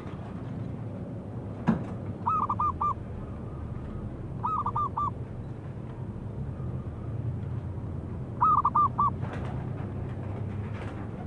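Zebra dove (perkutut) cooing: three phrases of about four quick, rolling notes each, a couple of seconds apart. A single sharp click comes shortly before the first phrase.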